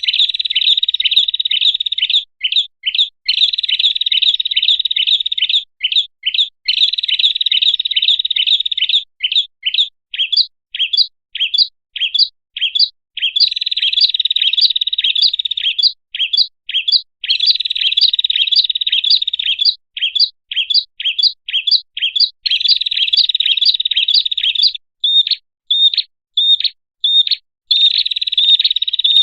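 Bird-lure recording of a small songbird, the 'prenjak kepala merah', calling nonstop: rapid high chirps, each sweeping down, several a second, running together in places into dense chattering trills.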